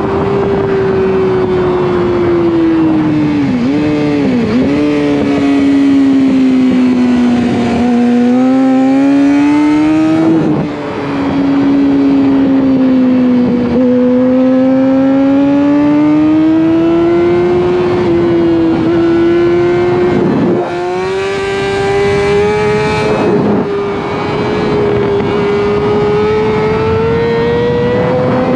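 600cc sport motorcycle engine running hard at high revs on a race track, its pitch sinking and climbing again and again as the throttle and gears change, with brief dips about four seconds in and a short break about ten seconds in. About twenty seconds in a rush of wind noise joins it for a couple of seconds.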